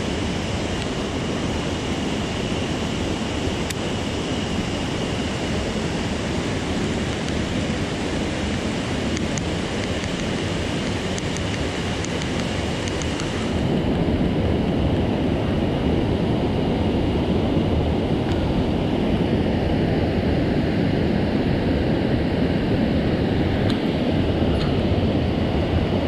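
Mountain stream water rushing steadily. About halfway through, the sound shifts: the high hiss drops away and the low rush grows louder.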